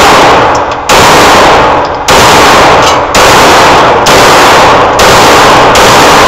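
Glock 17 9mm pistol fired in a steady string, about one shot a second, six shots in all. Each shot is loud enough to distort the recording and rings on into the next.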